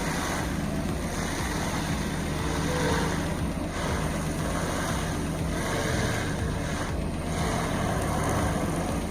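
Heavy machine engine running steadily, with a dense continuous rushing noise and no distinct impacts.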